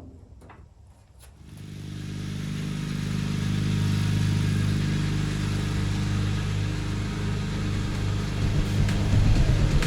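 Kohler Magnum 18 twin-cylinder engine on a Gravely riding mower starting about a second and a half in and running steadily, getting louder over the next couple of seconds. It is the test run after a spark plug change.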